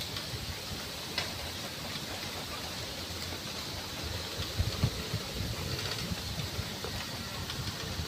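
Strong wind on the microphone: a steady rushing hiss with low rumbling gusts around the middle.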